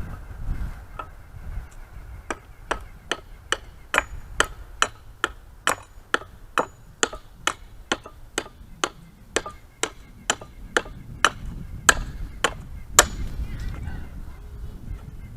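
Hand hammer striking a forged steel hold-down, steady blows about two a second, with the last few heaviest and a light metallic ring.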